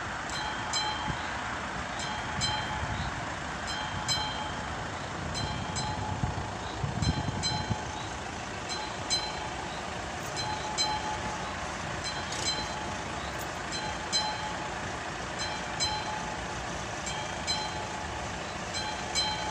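Classic electric bell of an AŽD 71 level-crossing signal ringing in slow, even strokes, about one every second and a half, warning that the crossing is closed for an approaching train. A brief low rumble rises and fades near the middle.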